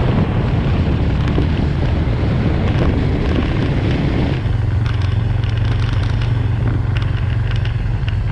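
Suzuki Thunder 250 motorcycle under way, its engine running beneath wind noise on the microphone. A little over four seconds in, the wind noise drops and the engine's low, steady drone comes through clearly.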